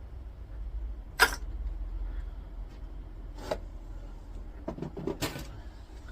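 A few sharp clicks and knocks of small metal scrap parts being handled and set down on a bench: one loud knock about a second in, another about two seconds later, and a short clatter near the end, over a low hum.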